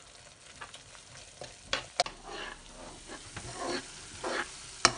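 A metal spoon stirring and scraping boondi through hot sugar syrup in a nonstick frying pan, in irregular strokes over a soft sizzle, with two sharp clicks, one about two seconds in and one near the end.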